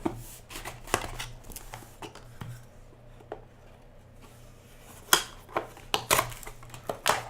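A trading card box being opened and handled: scattered sharp clicks and cardboard and wrapper rustles, quieter in the middle and louder with a few sharp clicks about five to six seconds in.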